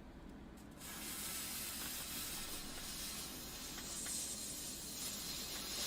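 Lit firework hissing steadily as it sprays, starting about a second in; a fountain type rather than a popping one.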